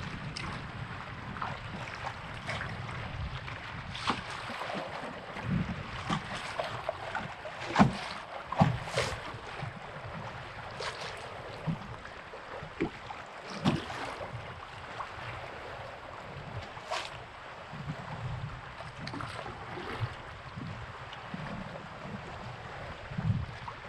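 Kayak paddling through rough, choppy water: paddle splashes and waves slapping the hull as irregular sharp slaps, over a low rumble of wind on the microphone.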